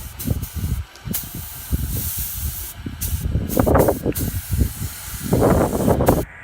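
Paint spray gun hissing as it sprays the alloy wheel. The hiss breaks off briefly a few times as the trigger is released and pulled again, then stops abruptly near the end.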